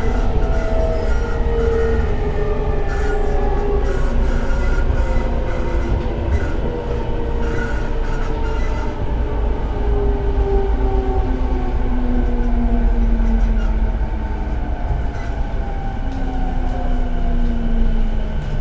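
E217-series electric train running and slowing down: its inverter and traction motor whine, several tones together, falls steadily in pitch over a constant low rumble of wheels on track.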